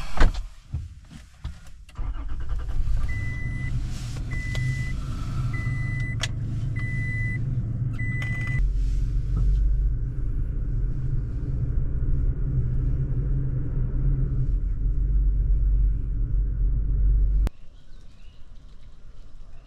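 A motor vehicle's engine running with a low rumble while a warning chime beeps five times, about a second apart, in the first half. A little past halfway the engine note deepens, and the sound cuts off suddenly near the end.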